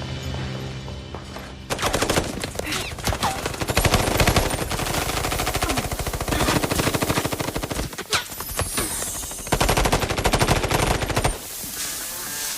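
Rapid automatic gunfire from a film fight scene, mixed over the soundtrack music. It starts about two seconds in, lets up briefly past the middle, and stops shortly before the end.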